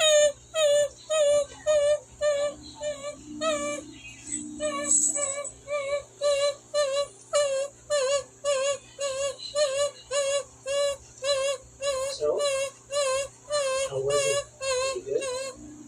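Long run of short, high-pitched warbling calls, about two a second, each with the same wavering rise and fall, made to get a reaction from dogs. They break off briefly about four seconds in, then carry on.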